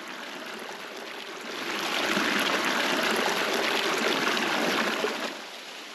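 A thin trickle of water running down a mossy rock face and splashing into a water bottle held under it. It is a steady rushing trickle that grows louder about two seconds in and eases off near the end.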